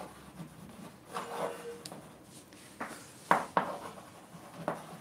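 Chalk writing on a blackboard: a few sharp taps of the chalk against the board with faint scratchy strokes between them.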